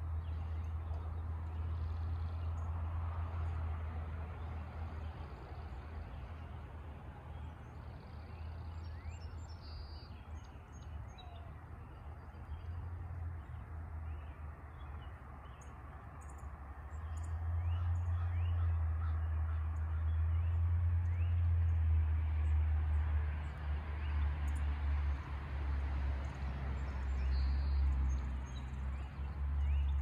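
Dawn chorus of many small birds chirping and calling, over a louder steady low rumble that swells about halfway through.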